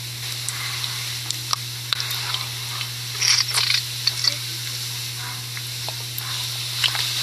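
Food sizzling in a pan: scattered crackles and light clicks over a steady hiss, with a denser cluster of crackles about three seconds in. It is the sound of an ASMR cooking video played back over a speaker, with a low steady hum underneath.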